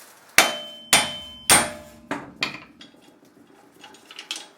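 Steel hammer driving a wheel stud out of a car's rear hub flange: three hard ringing metal-on-metal blows about half a second apart, then a few lighter knocks and taps as the stud comes free.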